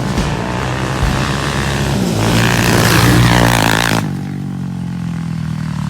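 Off-road engine revving hard, loudest and climbing in pitch around the middle, then switching suddenly about four seconds in to a steadier engine note.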